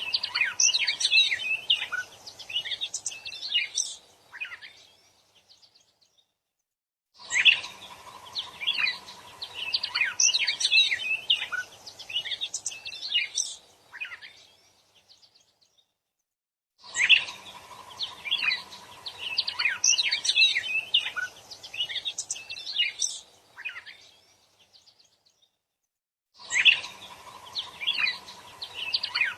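A wild grey songbird singing a busy chattering song of rapid chirps and short whistles, with a faint steady hum under it. The same stretch of song repeats in four bursts of about seven seconds, with two to three seconds of dead silence between them, as in a looped song-training (masteran) recording.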